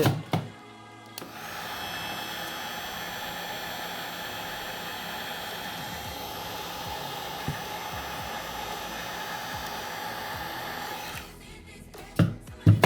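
Hot-air heat gun blowing steadily for about ten seconds while heating a small metal shield on a phone's frame, then switched off. Two short knocks follow near the end.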